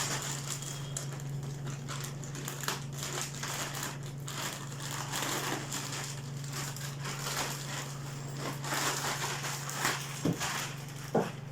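Packaging crinkling and rustling as it is handled and unwrapped, with scattered small clicks, over a steady low hum.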